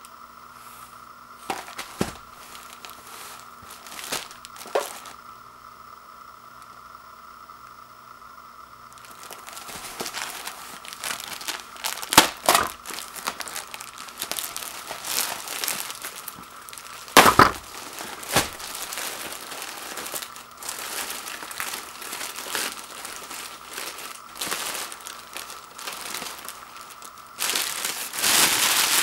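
Thin plastic wrap on a six-roll pack of toilet paper crinkling as it is handled and opened, with a few sharp snaps. The loudest crumpling comes near the end as the empty wrapper is balled up in the hands.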